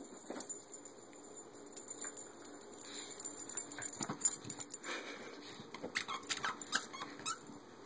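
A corgi moving about with a plush toy, her collar tags jingling in scattered light clinks, with some dog movement sounds mixed in.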